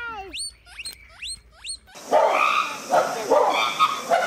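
Short, sharp, high-pitched squeaks with hooked rising pitch. About two seconds in they give way to louder, rough, barking animal calls in short pulses.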